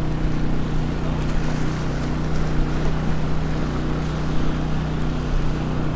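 Honda 2000 portable generator running with a steady, unchanging hum.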